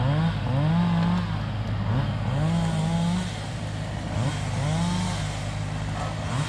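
A motor revving up again and again over a steady running hum, each rev rising in pitch and holding briefly, about once a second.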